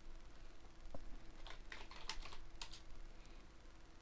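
Computer keyboard keystrokes, a scattered run of light key clicks, typed faintly over a low steady hum.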